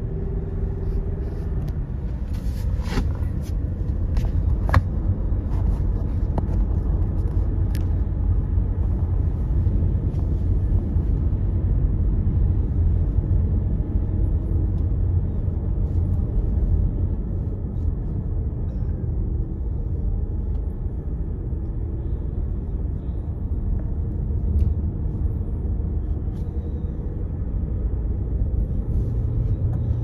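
Steady low rumble of a car's tyres and engine heard from inside the cabin while driving, with a few sharp clicks a few seconds in.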